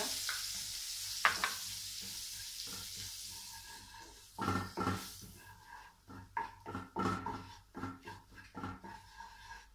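Butter and oil sizzling in a hot frying pan as starch goes in, the sizzle fading away over the first few seconds. A sharp clink comes about a second in, followed by a run of irregular knocks and clatters of utensils and pan.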